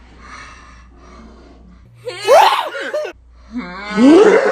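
A man's loud, exaggerated sneezes: soft breathy gasps, then two drawn-out wailing sneezes about two and four seconds in, each sweeping up in pitch.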